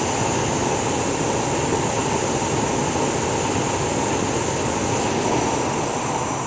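Oversized Bunsen-type gas burner running at full power, its flame giving a steady, even rushing noise.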